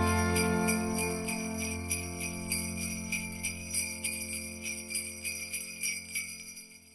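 Jingle bells shaken in a steady pulse of about two to three shakes a second over a sustained chord of festive music that slowly dies away, fading out completely at the end.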